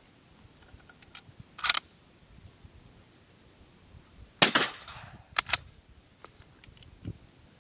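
A single shot from a Mossberg 183D .410 bolt-action shotgun about four and a half seconds in, the loudest sound, trailing off over about half a second, followed by two quick metallic clicks. A shorter sharp crack comes about a second and a half in.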